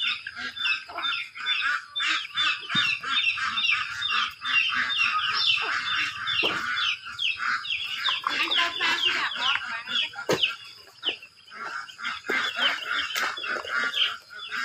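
A flock of poultry calling without pause, many short falling calls overlapping several times a second, with a few sharp knocks of metal work on the tractor wheel.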